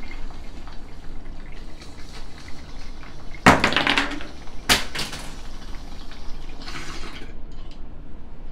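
Water in a glass bong bubbling as smoke is drawn through it, loudest from about three and a half seconds in, with a sharp click about halfway.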